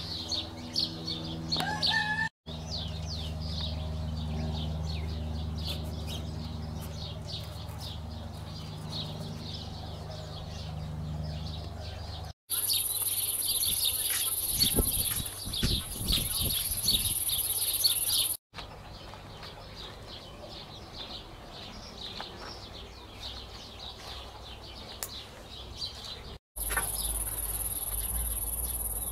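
Small birds chirping over and over. In two stretches a steady high insect drone is also heard. The sound changes abruptly several times.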